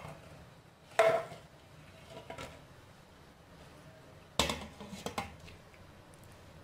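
Lid clanking against a stainless steel steamer pot as it is handled and set in place: one sharp ringing clank about a second in, then a quick run of rattling clanks about four and a half seconds in as the lid settles.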